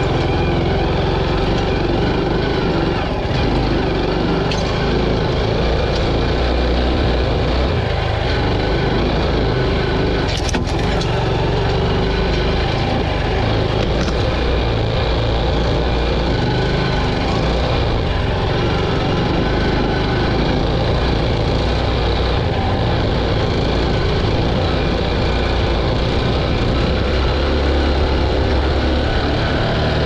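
Honda CT125's 125 cc air-cooled single-cylinder four-stroke engine running steadily as the bike rides over a sandy dirt trail, with dense noise throughout. There is a single sharp knock about ten seconds in.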